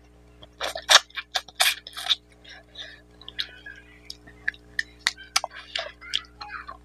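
Wet chewing and irregular mouth clicks and smacks of a person eating rice and mutton curry by hand, with fingers scooping rice off a banana leaf.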